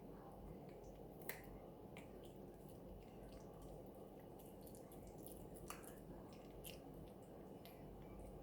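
Faint, scattered clicks and ticks of a dog gnawing on a chew stick, the sharpest about a second in and near six seconds, over a steady low hum.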